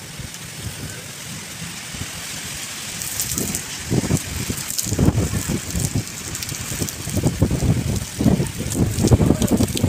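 Storm wind gusting hard against the microphone, with irregular low buffeting that grows stronger from about four seconds in, over a steady hiss of wind and rain.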